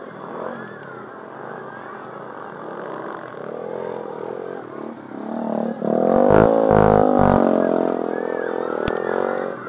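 Enduro dirt bike engines running and revving on a steep trail climb, rising in pitch and falling back, much louder from about halfway through. A few low thumps come in the middle of the loud stretch.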